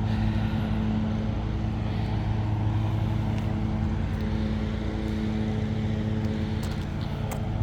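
Steady low mechanical hum of a running motor, even and unchanging throughout.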